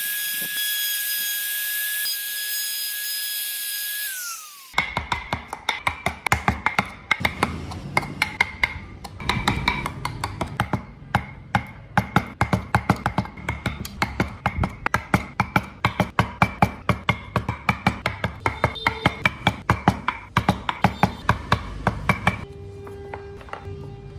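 A small power tool's motor running with a steady high whine, winding down about four seconds in. Then a long run of rapid, sharp taps and knocks on wood.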